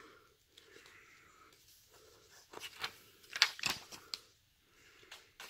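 Paper planner pages being turned by hand: a few short rustles and flicks of paper about halfway through, after a near-silent start.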